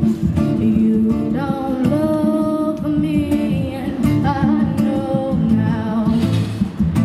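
A woman singing live with an acoustic guitar strummed along; the guitar is heard first and her voice comes in about a second in, holding long notes.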